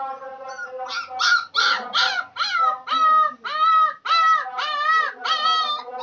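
A puppy crying: a run of short, high, clear yelps, about two a second from about a second in.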